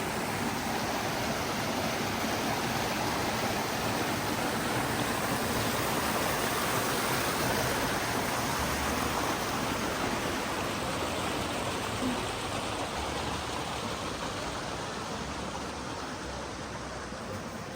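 Mountain creek water rushing over rocks, a steady even rush that grows a little louder toward the middle and eases off slightly near the end.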